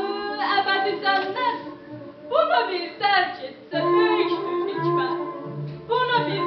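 A woman's voice singing a wailing lament, with sliding, mournful phrases over background music that holds low, steady notes.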